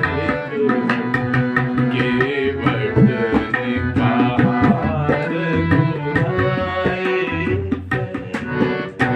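Bhajan accompaniment: tabla playing a steady rhythm of sharp strokes under a held melody.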